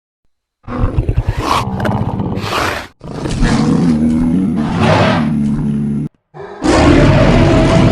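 Custom Carnotaurus roar sound effects: about a second in, a rattling growl that rises into a call, then a long roar, and after a brief break another long roar.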